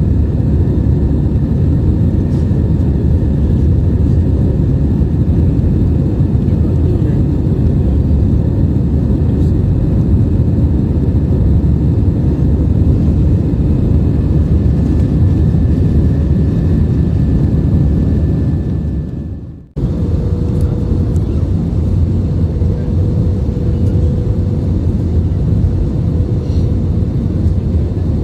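Airliner cabin noise in flight: a steady low rush of jet engines and airflow. About two-thirds of the way through it fades out for a moment and comes straight back, after which a faint steady hum tone runs under the rush.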